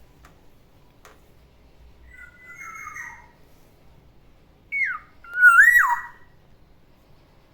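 Black-naped oriole singing: a raspy call about two seconds in, then a short downslurred note and a loud fluty whistle that rises and then drops sharply, near the six-second mark.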